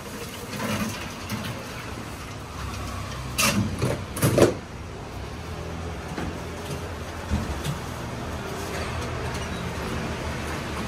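Stainless-steel lids and cups clattering at a self-serve drink counter, with two sharp knocks about three and a half and four and a half seconds in. A steady low hum runs underneath.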